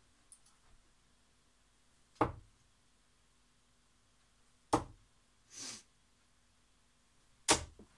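Three darts striking a Unicorn dartboard one after another, each a single sharp thud, roughly two and a half seconds apart.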